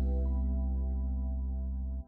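Closing background music of sustained, ringing low tones, fading down and then cutting off suddenly at the end.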